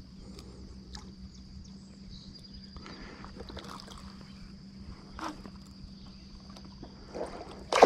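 A faint, steady high insect drone over a low hum, with a few light knocks. Near the end a sudden loud splash of water breaks in as the hooked blue catfish comes to the surface by the boat.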